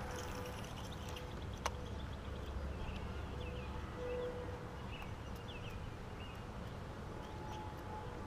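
Quiet open-air ambience: a low wind rumble on the microphone and a faint steady hum, with a sharp click about one and a half seconds in and a few short bird chirps in the middle.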